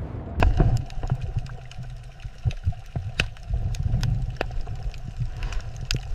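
Underwater ambience sound effect: a steady low rumble with frequent sharp bubbling pops and clicks, starting about half a second in.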